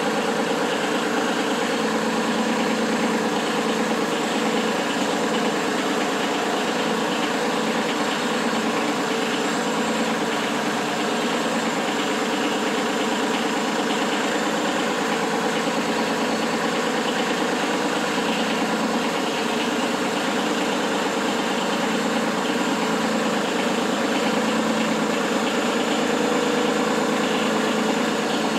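Kubota B2301 tractor's three-cylinder diesel engine running steadily at an even speed.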